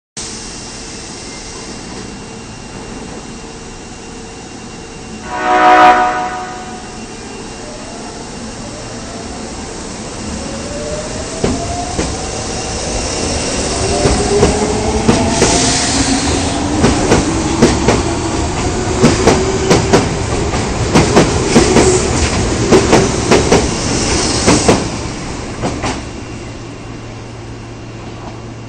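Osaka subway Tanimachi Line 22 series train 22962F, the former OTS 951F, gives one short blast on its odd-sounding horn. It then pulls away: its motors whine, rising steadily in pitch as it speeds up, and the wheels clack over rail joints, fading away near the end.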